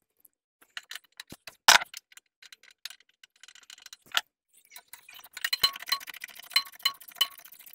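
Ratchet wrench with a spark plug socket on an extension, tightening a new spark plug into a Briggs & Stratton twin-cylinder engine: a few scattered metal taps and clicks as the socket is set, then from about five seconds in a fast run of ratchet clicks.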